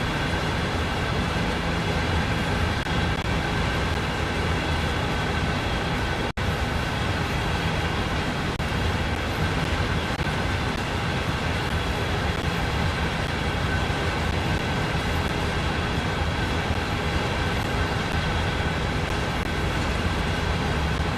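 CSX freight train running, a steady low rumble with several steady high tones over it. The sound cuts out for an instant about six seconds in.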